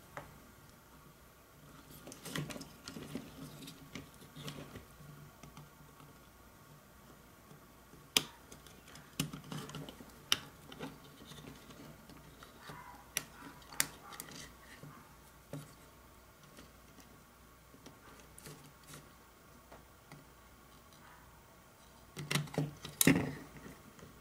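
Scattered sharp clicks and light handling noise from a carbon monoxide detector's circuit board as its transformer wires are cut free, with a louder cluster of knocks near the end.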